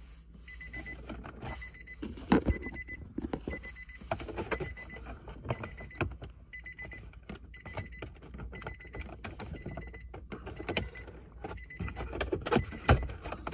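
2011 Nissan Pathfinder's warning chime beeping over and over at one steady high pitch, sounding because the key is left in the ignition with the power on. Scattered clicks and knocks of plastic console trim and its clips being pried loose around the shifter.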